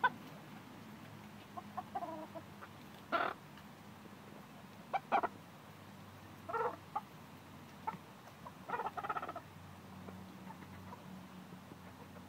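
Backyard chickens, Polish and Brahma hens, clucking: short calls now and then, with a quick run of clucks about nine seconds in.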